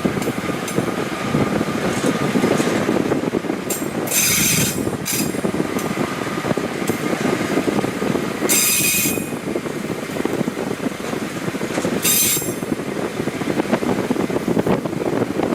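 TMC200 track snow-removal motor car running along the rails, a steady engine and wheel rumble. Several short, high hissing squeals break in over it about a third of the way in, past the middle, and near the end.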